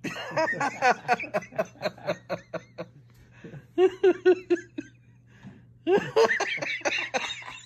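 A person laughing in three bouts of quick, breathy giggles.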